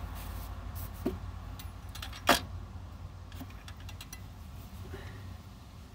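Light clicks and knocks of parts being handled, with one sharper click about two and a half seconds in, over a low steady rumble that slowly fades.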